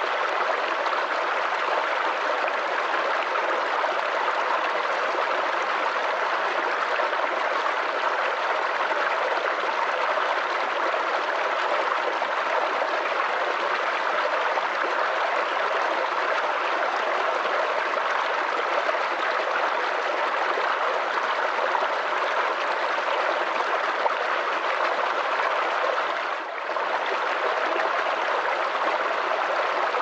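Small rocky stream tumbling over stones and low cascades: a steady rush and splash of running water, with one brief dip in level about 26 seconds in.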